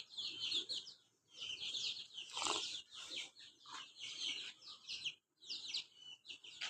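A flock of small aviary birds chirping busily, many short high notes that fall in pitch, overlapping one after another.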